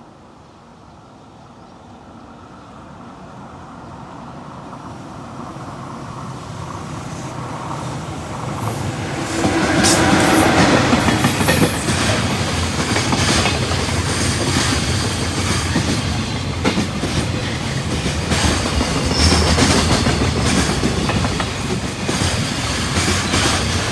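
A JR Freight EF66 electric locomotive hauling a container train approaches, growing steadily louder for about nine seconds before passing close. A long run of container flatcars then rumbles by, with the wheels clacking over the rail joints.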